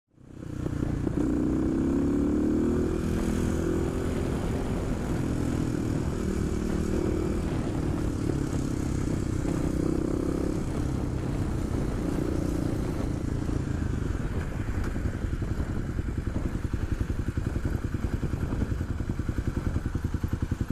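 Kawasaki KLX250SF supermoto's single-cylinder four-stroke engine running at low revs. Its exhaust pulses grow more distinct and even over the last few seconds.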